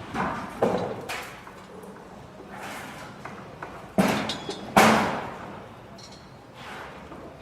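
Construction site ambience: irregular heavy thuds and bangs of materials being dropped and struck, the loudest two about four and five seconds in, some with a short ringing after them, over a steady low background.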